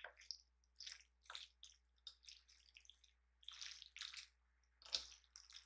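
Faint, irregular wet squelches and light clicks of saucy instant ramen noodles being tossed and mixed on a plate with two wooden utensils.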